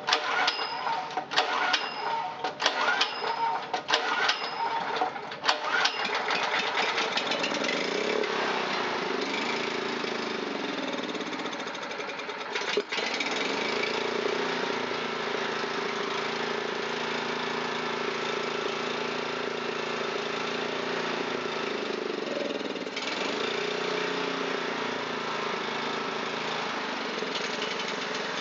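Honda GX270 single-cylinder engine being pull-started on a shot of carburetor cleaner, firing irregularly for several seconds, then catching about six seconds in and running steadily at high speed, with a single sharp click near the middle.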